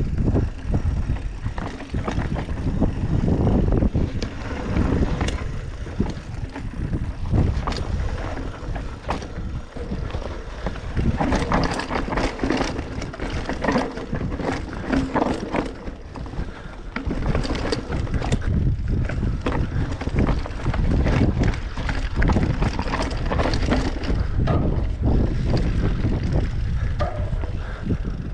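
Bicycle being ridden: wind buffeting the microphone over a constant run of clicks, knocks and rattles from the bike.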